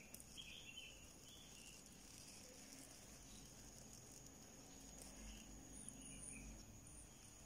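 Near silence: faint room tone with a steady high hiss, and a few faint soft rustles of yarn being worked on a crochet hook, early on and again past the middle.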